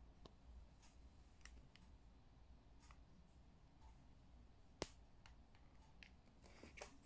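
Near silence with a low room hum and scattered faint clicks, and one sharper click about five seconds in.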